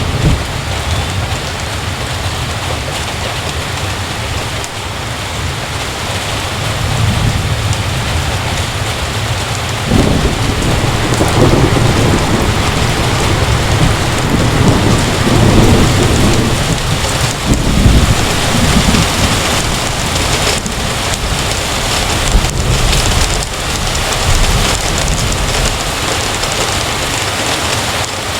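Heavy rain pouring steadily, with low rolling thunder rumbling between about ten and nineteen seconds in.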